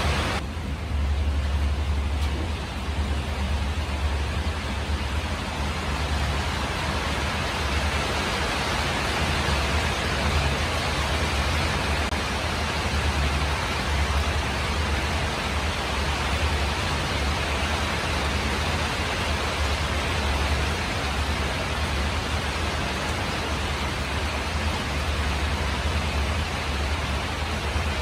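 Steady rain falling on a tin roof: an even hiss with a low rumble underneath.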